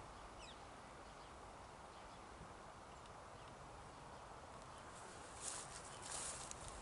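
Quiet outdoor background with a short bird call about half a second in, then footsteps crunching through grass and dry plants from about five seconds in.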